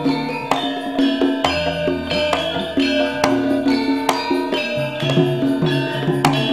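Javanese gamelan playing an instrumental passage: bronze saron bars struck with wooden mallets ring out in a brisk run of notes, over sharp percussive knocks. A deep gong tone sounds about one and a half seconds in and rings on for a few seconds.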